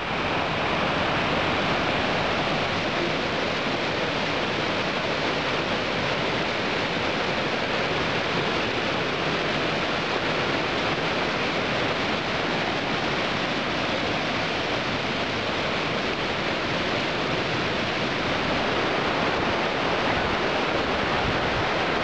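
Kizilkobinka mountain stream rushing over rocks and small cascades: a steady, even rush of water.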